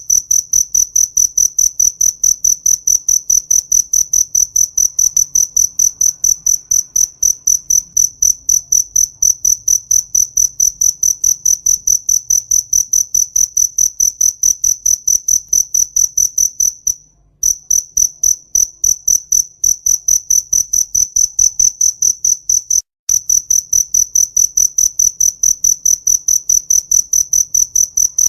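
A single cricket chirping loudly in a fast, even pulse of about six or seven high-pitched chirps a second, breaking off briefly twice.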